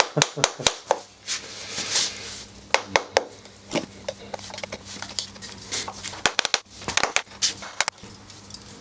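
Irregular metallic clicks and light knocks of hand tools against a titanium exhaust silencer as its tight-fitting baffle is worked loose. They come in short clusters, with a faint steady hum underneath.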